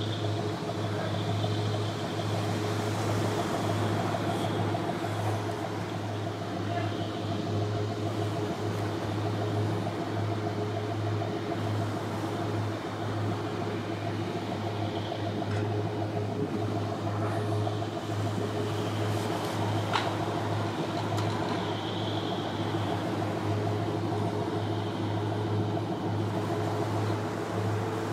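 Engine machinery running with a steady low drone and a few held humming tones above it. A single sharp click comes about twenty seconds in.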